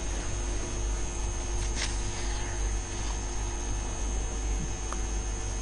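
Steady electrical mains hum with a faint hiss from the recording, and one faint click about two seconds in.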